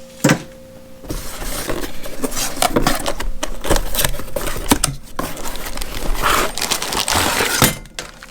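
Cardboard box being opened and unpacked by hand: a single sharp click about a third of a second in, then several seconds of dense rustling, scraping and small knocks of cardboard and packaging.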